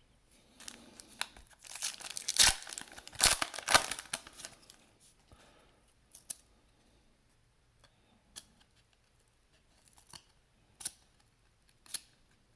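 A basketball trading-card pack's wrapper being torn open and crinkled, followed by a few sharp light clicks and taps as the cards are handled.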